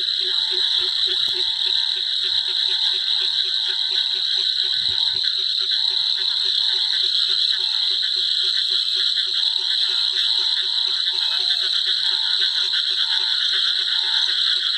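Frogs calling from flooded ground: one low call repeats rapidly and evenly without a break, while a second, higher call comes in short groups now and then. Under them runs a steady, shrill high-pitched drone.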